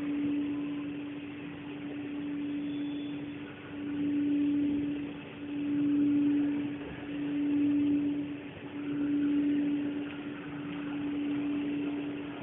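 A steady low hum, one pitch, that from about four seconds in swells and fades about every one and a half seconds.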